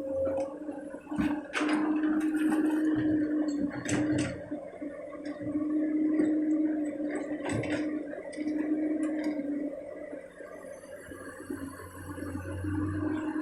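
Komatsu PC200 excavator working: its diesel engine and hydraulics running with a hum that swells and drops every few seconds as the machine takes load, broken by several sharp metallic knocks.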